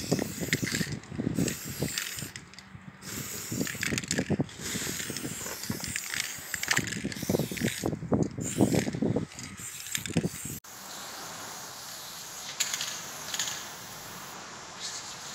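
Aerosol spray paint can hissing in repeated short bursts as graffiti tags are sprayed onto a wall. There is an abrupt cut about ten seconds in, after which the hiss is steadier with a few louder bursts.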